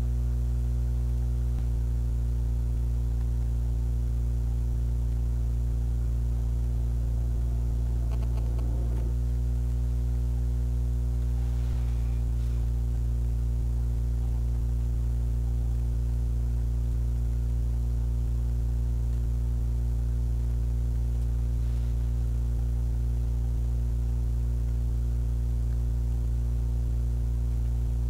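Steady electrical mains hum: a constant low drone with a ladder of higher overtones, unchanging throughout.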